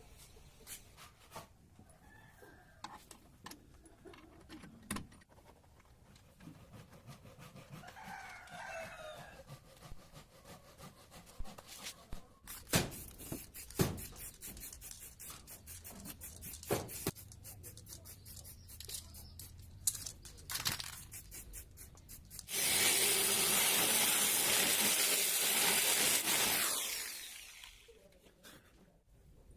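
Scattered clicks and knocks of work going on, with a rooster crowing about eight seconds in. A loud, steady hiss cuts in suddenly near the end, lasts about four seconds, then fades away.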